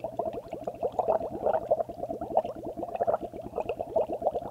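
Blowing through a drinking straw into a glass of water: a steady run of quick, closely spaced bubbles, made as foley for water boiling in a teapot.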